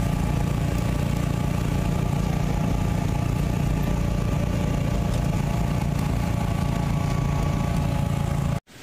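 Engine of a moving open-sided passenger vehicle running steadily, heard from a passenger seat: a low drone with a steady whine above it. It cuts off suddenly just before the end.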